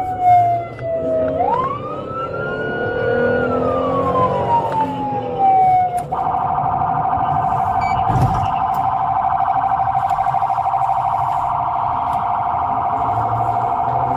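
Police siren wailing in slow rising and falling sweeps, then switching abruptly about six seconds in to a rapid yelp that holds steady. A dull thump comes a couple of seconds after the switch.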